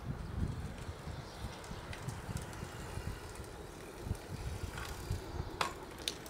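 Bicycle on a test ride, its disc brake now silent with no squeal, giving only a low gusty rumble. Two sharp clicks come near the end.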